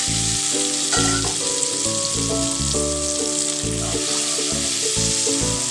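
Water and spices sizzling and bubbling in the hot mustard oil of a nonstick wok, a steady hiss, while a spatula stirs through the liquid. Background music with held notes plays over it.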